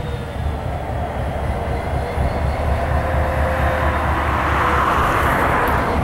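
Norfolk Southern diesel-electric locomotive with a slug unit, its diesel engine running with a low, steady rumble. A hiss swells up over the last couple of seconds.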